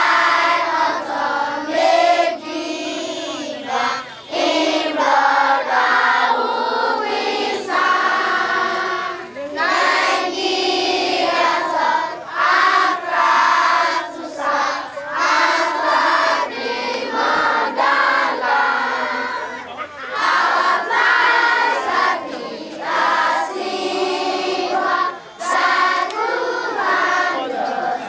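Many voices singing together in chorus.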